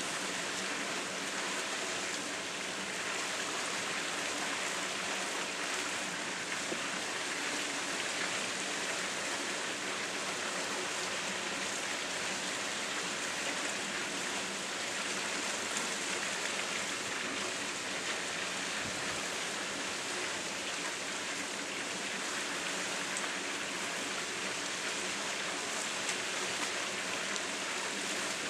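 Steady splashing rush of water from a pool's three spillway waterfalls pouring over a raised wall into the pool.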